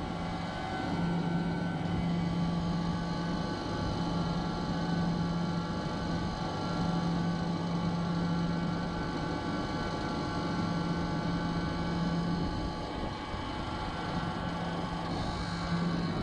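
Carrier 30GX screw chiller running: steady machine noise with a low hum that swells in and drops out every couple of seconds.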